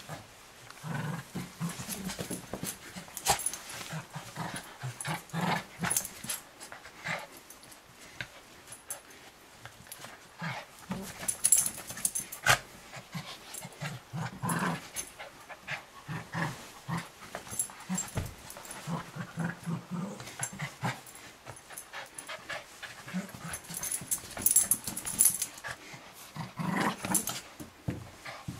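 Cavalier King Charles Spaniel puppy play-growling in short, irregular bursts while tugging and worrying at a sock, with scuffling and rustling mixed in.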